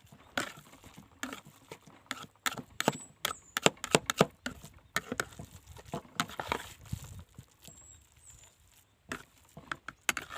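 Grated green papaya batter being stirred in a bowl, the utensil clicking and tapping against the bowl in quick, irregular strokes that come thickest in the middle.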